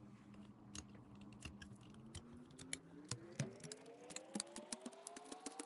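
Palette knife pressing and tapping into thick blocks of paint, giving irregular sticky clicks and taps, several a second. From about three seconds in, a faint tone rises slowly in pitch beneath them.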